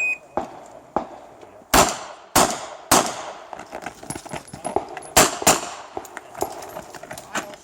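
Smith & Wesson 929 revolver in .38 Short Colt firing a string of irregularly spaced shots, with a pause of about two seconds between the first three loud shots and the last two. A short beep, typical of a shot timer, sounds at the very start.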